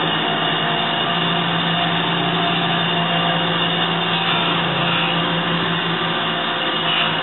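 A 6-by-18-inch DoAll manual surface grinder running, its spindle motor and grinding wheel giving a loud, steady hum with several constant tones.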